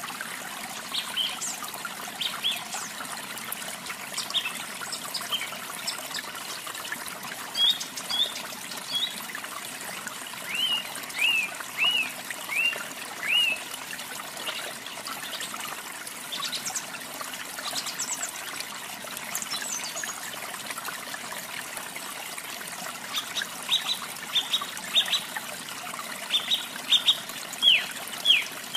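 Steady trickling of running water with a canary chirping over it in short runs of repeated, downward-sliding notes, the loudest run near the end.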